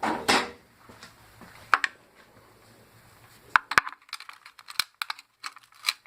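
Tool prying at the metal retainers on a plastic pump housing: a short scraping rush at the start, a single sharp click, then a run of small hard clicks and taps over the last couple of seconds.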